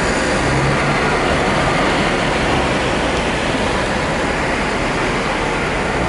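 SMRT C751B electric train running slowly along the elevated track as it approaches a station, a steady, even rumble without any clear motor whine.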